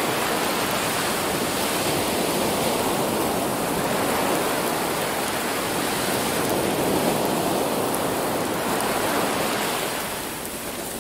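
Snowstorm-on-the-beach ambience track: a steady rushing of wind and ocean surf, easing off slightly near the end.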